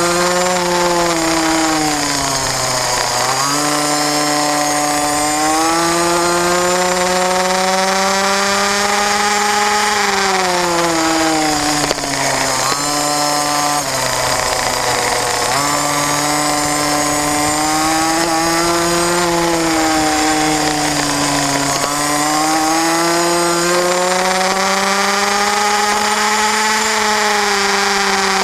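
Racing kart engine heard on board at racing speed, its note climbing steadily along the straights and dropping sharply several times as the kart slows for corners.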